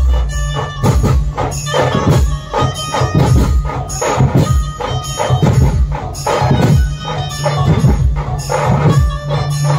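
Dhumal band music played loud through a large sound system: strong percussion hitting on a steady beat over held notes.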